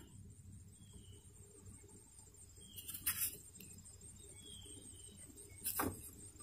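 Quiet outdoor background with a few light taps and rustles, about three seconds in and again near the end, as a camera cable is pushed into the rubber seal along a van's rear door edge.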